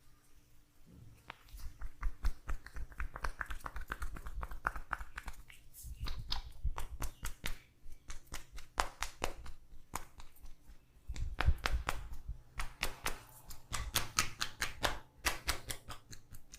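Hand tapping of a percussive massage: fast runs of quick strikes on the body, each with a soft thump, coming in bursts with brief pauses between them.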